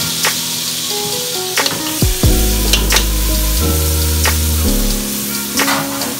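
Garlic frying in hot oil in a pan, a steady sizzle, under background music with low sustained notes.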